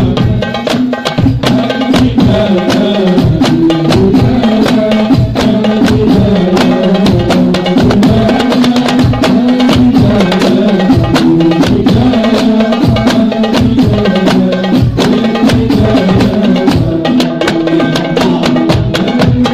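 Hadrah frame-drum ensemble playing a fast, dense interlocking rhythm. Hand-struck frame drums and a large bass frame drum are heard, with a melody line over the drums.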